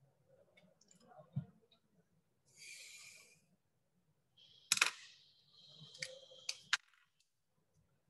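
A pen drawing on paper: a short scratching stroke, then a longer stretch of strokes broken by several sharp taps of the pen tip on the page.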